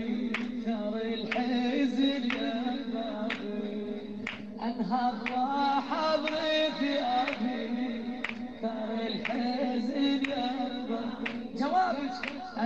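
Mournful sung lament with the voice held on long, wavering notes, over a slow beat of sharp strikes about once a second.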